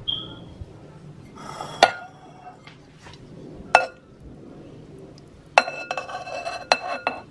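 Metal spoon clinking against a glass bowl while scooping stewed fish head: single sharp clinks about two and four seconds in, then a quick run of clinks with the glass ringing near the end.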